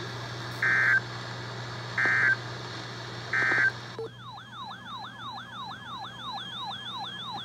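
Three short, identical buzzing EAS data bursts about a second apart, the end-of-message code that closes an emergency alert. About four seconds in, an electronic siren tone starts, sweeping quickly down in pitch about three times a second.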